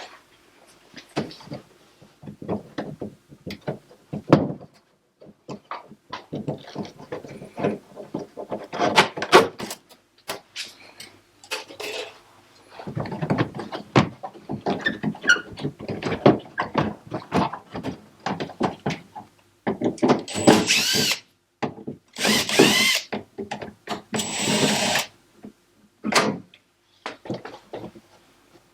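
Clicks and clatter of washing-machine parts and screws being handled during disassembly. About two-thirds of the way through, three short runs of a power drill-driver, its whine rising and falling as it drives screws out.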